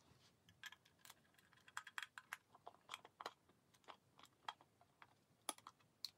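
Faint, irregular plastic clicks and taps as fingers handle and pull at the rocker and cover of a flush-mounted light switch and room-thermostat frame, taking the parts off.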